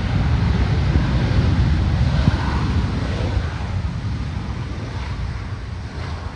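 Wind buffeting the microphone over the steady rush of a Boeing 737's jet engines as the airliner rolls along the airfield, easing off slightly toward the end.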